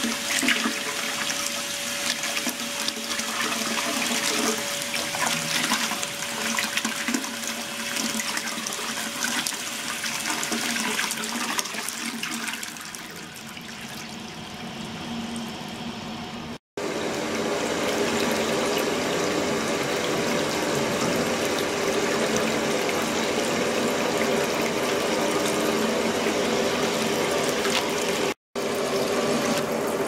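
Water churning and spilling over the saw-toothed overflow edge of a cleaning tank, stirred by a degassing microbubble liquid circulation system: a steady rushing, splashing flow. The sound cuts out for an instant twice.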